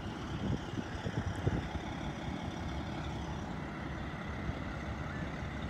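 Windstar Lines charter motorcoach's diesel engine idling steadily while parked.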